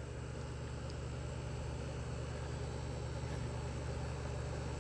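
Steady low hum with a faint hiss, unchanging throughout: background room noise.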